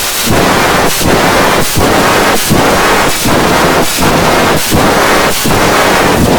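Heavily distorted, very loud sound-effect remix: a dense wall of noise pulsing in an even beat, a brief dip about every three-quarters of a second.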